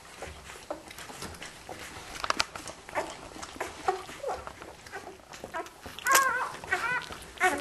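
A litter of week-old Australian Kelpie puppies suckling at their mother, with soft wet clicks and snuffles. From about six seconds in, a puppy gives several short, high-pitched squeaking cries.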